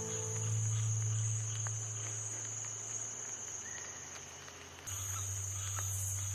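Steady high chirring of crickets over a low sustained hum; both shift abruptly about five seconds in.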